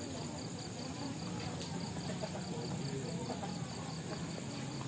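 Insects chirping in an even, rapid pulse, about five a second, with a steady high hiss. Beneath it is the low murmur and shuffle of a crowd walking along a station platform.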